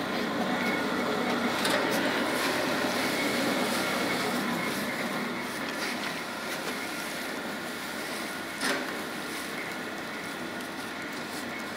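Plastic-film shredder running steadily, cutting wet used plastic bags into strips, with a short knock about nine seconds in.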